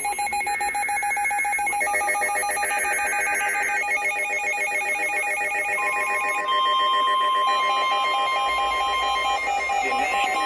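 Emergency Alert System electronic tones: several steady alert tones layered with rapidly chopped data tones, the mix of tones shifting a couple of times.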